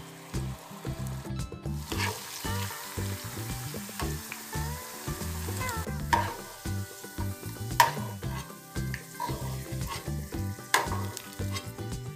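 Diced potatoes sizzling in hot oil in a nonstick frying pan as a metal spoon stirs and scoops them out. The spoon scrapes and clicks sharply against the pan a few times.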